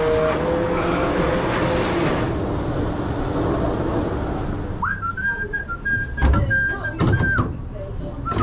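A person whistling a tune in clear held notes that step up and down, starting about five seconds in, with a few clatters of dishes. Before that, a loud steady rushing noise fills the kitchen and cuts off.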